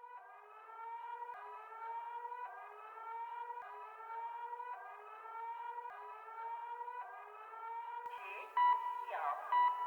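Synthesized emergency-alert siren tone, a rising whoop with overtones repeated about once a second, sounding an attack warning. About eight seconds in it gives way to electronic music of steady pitched tones.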